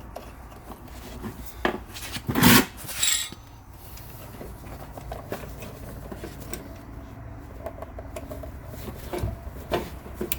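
Hand-turned clamp screw pressing on an old brake pad to push the rear caliper piston back: metal clanks and scraping as the tool is worked, with the loudest clank about two and a half seconds in and a few more knocks near the end.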